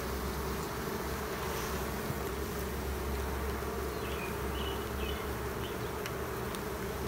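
Honeybees buzzing steadily in a mass around a brood frame lifted out of an open hive.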